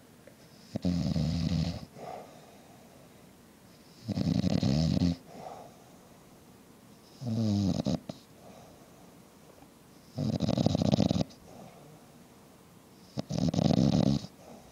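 A man snoring really loud: five snores about three seconds apart, each about a second long, with a softer breath after each.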